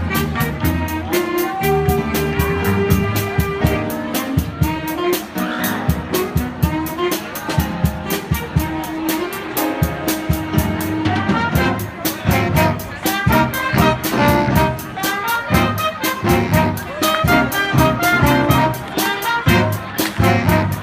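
Jazz band playing: horns holding and moving between notes over a steady drum beat.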